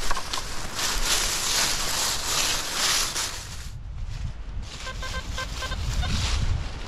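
Rustling noise for the first three and a half seconds. Then, about five seconds in, an XP ORX metal detector gives a short run of rapid beeps, a signal over a buried metal target.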